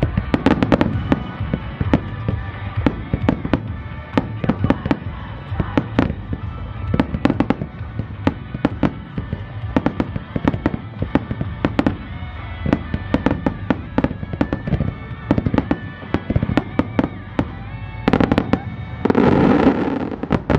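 Starmine fireworks display: a rapid, irregular series of sharp shell-burst bangs, often only a fraction of a second apart, over background music. Near the end the barrage thickens into a louder, dense rush of bursts.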